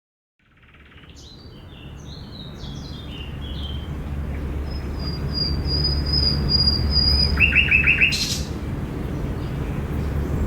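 Park ambience fading in: several songbirds chirping and whistling, with a long thin high whistle, then a quick run of five falling notes and a short burst of noise about eight seconds in. A steady low rumble runs underneath.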